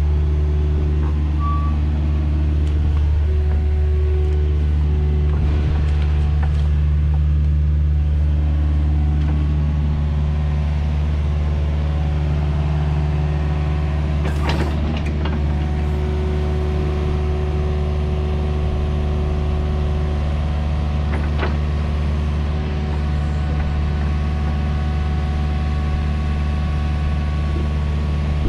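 Excavator diesel engine running steadily at working speed, with a couple of sharp metallic knocks partway through.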